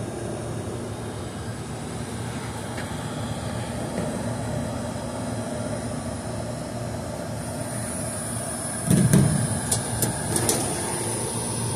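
Trane rooftop air-conditioning unit running steadily with its compressors on, a continuous mechanical drone. About nine seconds in come a low thump and a few sharp clicks.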